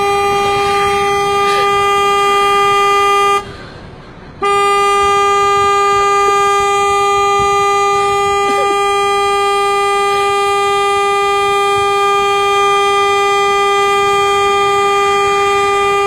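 Car horn held down by a dog in the driver's seat, blaring one long steady note that breaks off for about a second a few seconds in, then sounds on without a break.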